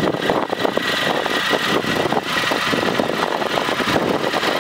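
Triumph Speed Triple 1050's three-cylinder engine idling steadily through an aftermarket Arrow exhaust, with an uneven burble.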